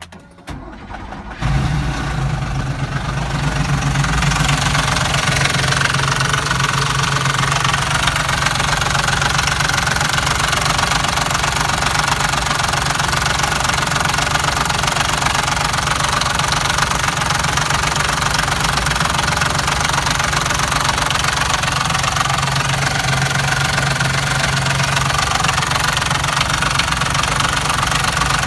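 Porsche engine cranked on the starter, catching about a second and a half in, then running steadily with a loud knocking sound.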